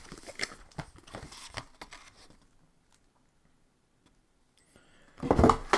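Plastic packaging wrap crinkling and tearing in a quick run of small crackles, stopping about halfway through. A louder thump comes near the end.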